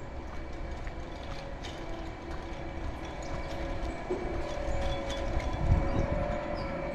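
Footsteps on a concrete sidewalk, with a steady motor drone in the background that grows louder in the second half, and a low rumble of wind on the microphone.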